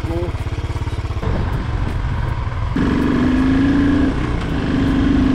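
Royal Enfield Continental GT 535's single-cylinder 535 cc engine running just after start-up, its low pulsing beat changing about a second in, then holding a steady, higher note from about three seconds in.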